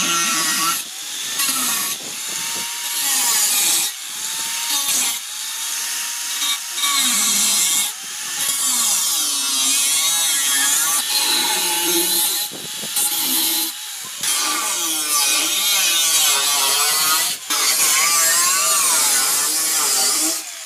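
Angle grinder with a cutting disc cutting through a motorcycle fuel tank's sheet steel. It gives a harsh, loud whine that wavers in pitch as the disc bites, with several brief dips where the cut eases off. The grinder is cutting away the tank's leaking bottom so a new sheet can be fitted.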